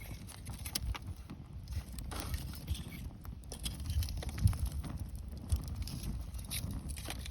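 Wood bonfire crackling, with sharp pops and snaps at irregular intervals over a low steady rumble.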